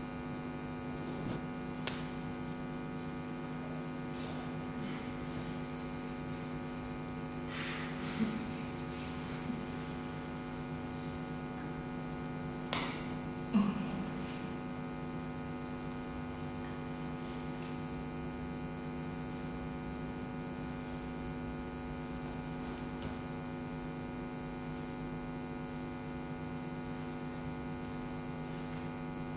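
Steady electrical mains hum, a buzz of many evenly spaced tones, with a few faint knocks or clicks. The loudest two come close together near the middle.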